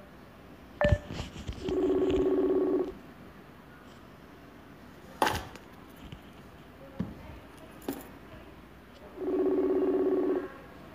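Ringback tone of an outgoing smartphone call, heard through the phone's speaker: two rings about a second long, some seven seconds apart, while the call is still unanswered. A few sharp knocks and clicks fall between them, the loudest about a second in.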